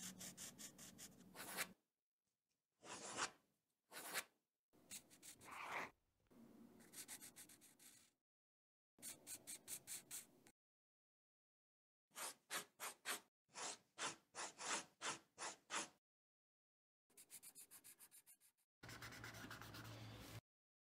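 Pencil lead scratching on sketchbook paper in quick back-and-forth shading strokes, about four a second. The strokes come in short bursts that break off abruptly into silence.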